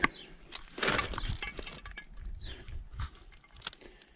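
Water splashing and sloshing in the shallows around a muskie held by the tail for release, with small clicks and knocks. A bird gives a short falling chirp partway through.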